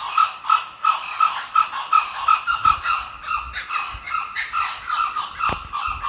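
Kookaburra giving its laughing call: a long, loud run of harsh notes repeated evenly, about three a second.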